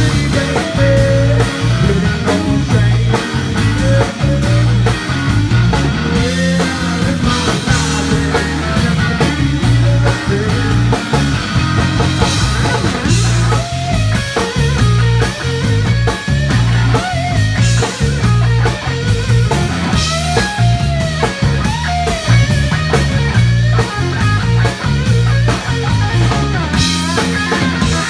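Live blues-rock band playing: an electric guitar plays a lead line with bending notes over bass guitar and a drum kit.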